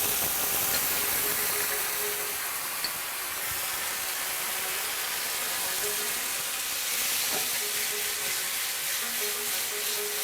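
Steady sizzling of hot olive oil in a pan with garlic paste and tomato sauce frying in it.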